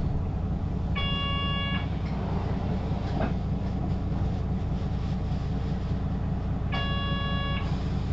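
Hino LKG-KV234N3 city bus, 6-speed manual, heard from inside: the diesel engine is running with a steady low rumble. A short electronic tone sounds twice, about six seconds apart.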